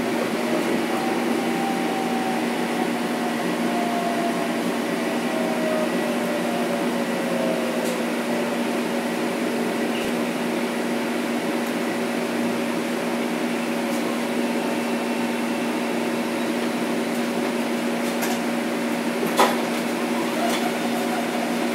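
Steady electrical hum inside a Metro-North M7 electric multiple unit, with a thin whine from its Mitsubishi IGBT inverter and AC traction motors falling in pitch over the first several seconds as the train slows. A single sharp click comes near the end.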